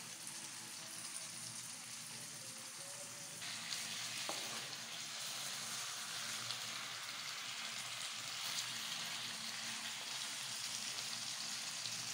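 Chunks of beef frying in a thick tomato mixture in a pan, a steady sizzle that grows louder about three and a half seconds in, while a wooden spoon stirs it. One light knock about four seconds in.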